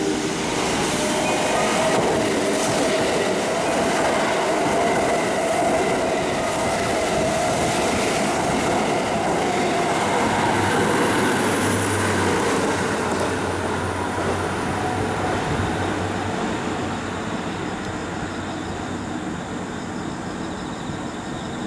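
Kintetsu 22000 series limited-express train, eight cars, running through a station at speed without stopping: steady rumble of wheels on rail with a whine in the first half, fading slowly over the last few seconds as it pulls away.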